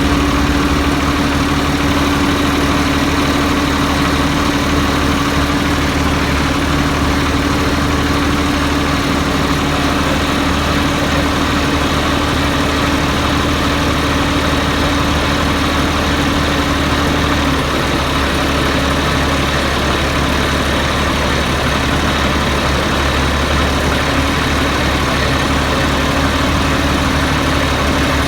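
Diesel tractor engine idling steadily, with a steady hum that drops away about two-thirds of the way through.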